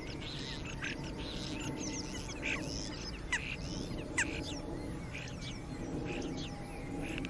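Birds chirping repeatedly in quick short calls over a steady low background, with two sharper, louder calls a little after three and four seconds in.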